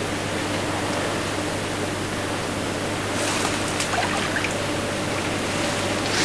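Water of a shallow, muddy stream moving steadily, over a steady low hum, with a few faint clicks about three to four seconds in.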